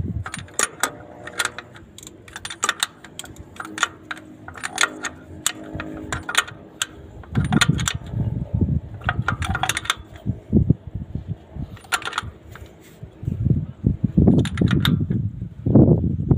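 Metal hand tools and engine parts clicking and clinking in irregular bursts during excavator injector work, with duller knocks and handling noise at times.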